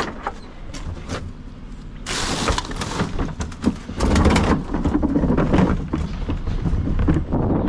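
Garbage truck at work: knocks and clicks, a short hiss about two seconds in, then loud rumbling and rattling from about four seconds in.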